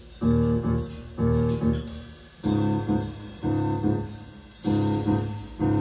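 Recorded music played through a pair of Saba FL 835 F loudspeakers driven by a Philips 384 amplifier. Chords over a deep bass are struck about once a second, each fading before the next.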